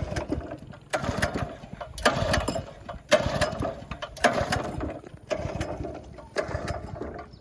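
Boat outboard motor being pull-started again and again without catching: a sharp rasping pull about once a second, seven times, each dying away without the engine running.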